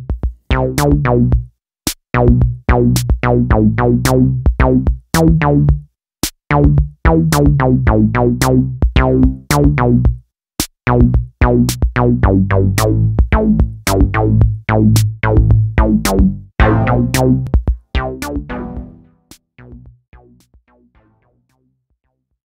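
Electronic intro music with a steady drum-machine beat and a heavy bass line, fading away in the last few seconds.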